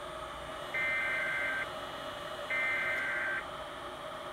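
Emergency Alert System SAME header tones from an EAS encoder sending a required weekly test: two buzzy data-tone bursts, each just under a second long, with a pause of about a second between them.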